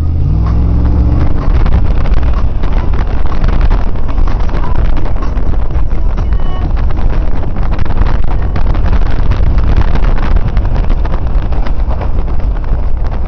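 Dodge Durango's 5.9-litre V8 revving up, its pitch rising over the first second or so. It is then buried under a loud, steady rush of wind buffeting the microphone and snow spraying up around the moving truck, full of sharp crackles.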